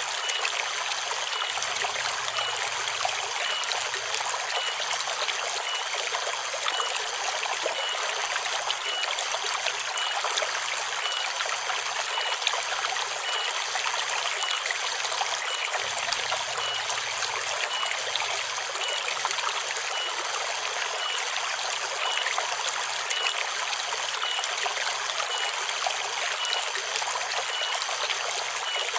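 Forest river water flowing and trickling steadily, with cicadas keeping up a steady high drone over it.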